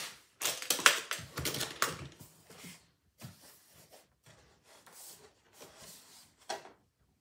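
Hard-shell guitar case being unlatched and opened and an acoustic guitar laid inside: a quick run of clicks and knocks from the latches and lid in the first two seconds, then sparser soft bumps and knocks.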